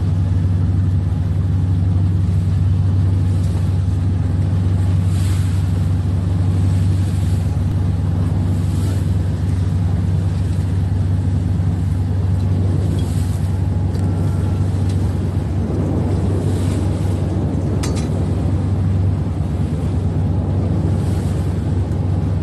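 An engine running steadily at a constant speed, a low, unchanging drone.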